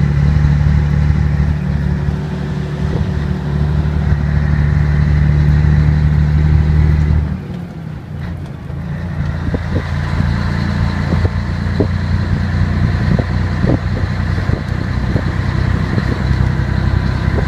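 Scania 113 truck's 11-litre six-cylinder diesel heard from inside the cab, running steadily on the move. The engine sound drops away suddenly about seven seconds in, then comes back steady, with light ticks and rattles.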